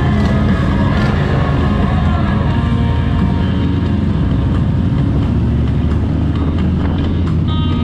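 Motorcycle engine running steadily at road speed, with wind rush over the microphone.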